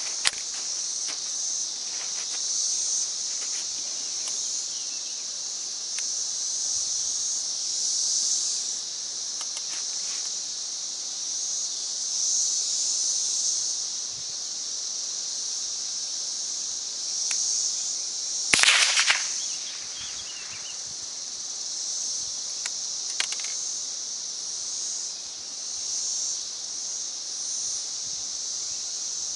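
Insects buzzing in a steady high chorus that swells and fades. A quick cluster of sharp cracks about two-thirds of the way through is the loudest moment, with a few fainter clicks elsewhere.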